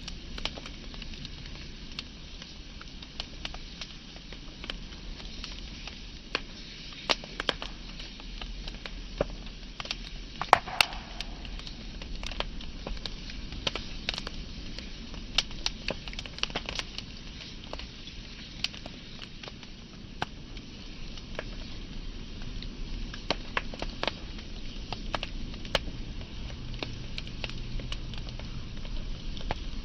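Wood fire burning: a steady low rumble and hiss with frequent sharp crackles and pops at irregular intervals, the loudest pop about ten and a half seconds in.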